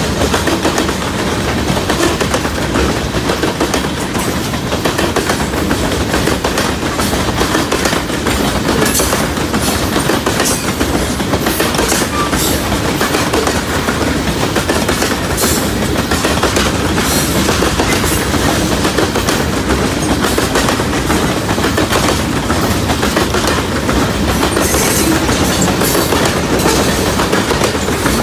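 Freight cars of a passing New York, Susquehanna & Western train rolling by close up: a steady rumble and rattle of wheels on rail, with stretches of sharp metallic clatter about nine seconds in and again near the end.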